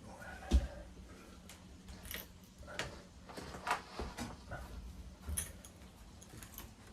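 Scattered clicks, taps and short scrapes of tile-setting work: tools and a heavy porcelain tile being handled and worked into adhesive. There is one sharper knock about half a second in.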